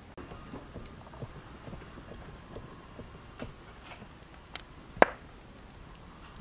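Hands working dough on a floured wooden board: soft irregular pats and taps as the dough is pinched off and shaped into balls. A single sharp click stands out about five seconds in.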